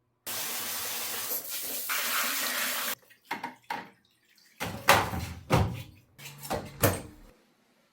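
Water running from a tap for about two and a half seconds, then shut off abruptly, followed by a series of sharp knocks and clatters.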